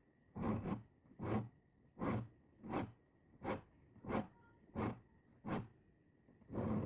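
Diamond file rasping across the teeth of a Gyokucho ryoba Japanese saw to sharpen them. Short, even strokes, about three every two seconds, with a brief pause before the last one.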